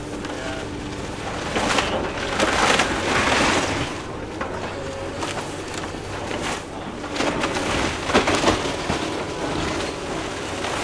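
Kobelco hydraulic excavator tearing into a wood-framed building: timber and debris crunching and cracking in two louder bouts, over the steady drone of the machine's engine.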